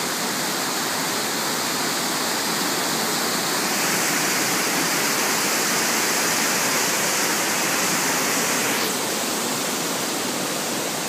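Rushing whitewater of a rocky creek tumbling over boulders: a steady hiss of water that swells for a few seconds in the middle.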